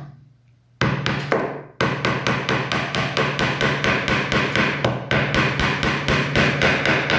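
Small hammer tapping a small nail into a wooden frame to hold canvas: two single blows about one and two seconds in, then a fast, even run of light taps, about four or five a second.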